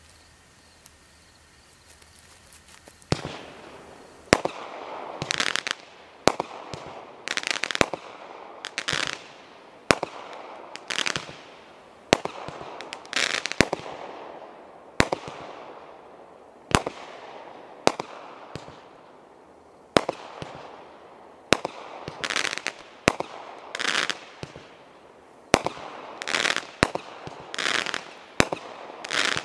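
Black Cat Thunder Kat consumer firework going off after about three seconds of quiet: sharp bangs roughly every one to two seconds, with short hissing bursts between them.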